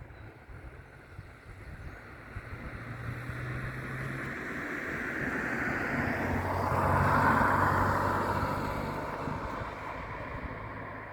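Jet airliner's engines passing, the sound building to its loudest about seven seconds in and then fading.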